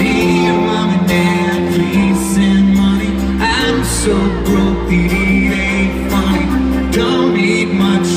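Live acoustic country-pop performance heard from the audience through the hall's PA: a man singing with strummed acoustic guitar and keyboard accompaniment.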